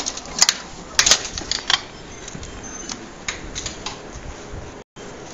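A quick run of sharp clicks and knocks in the first two seconds, then sparser, lighter ticks. The sound drops out completely for a moment near the end.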